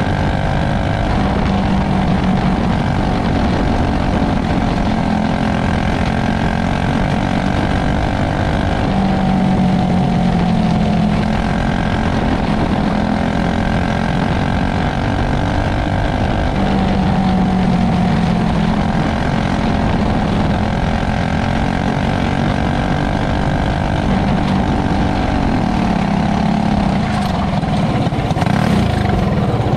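Onboard sound of a winged dirt-track race car's engine running hard, its pitch rising and falling every seven or eight seconds as the driver goes on and off the throttle through the laps.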